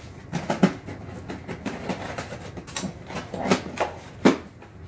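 Scissors cutting through the packing tape on a cardboard shipping box, then hands pulling at the tape and box: an irregular series of sharp crackles and knocks, the loudest about half a second in and again near the end.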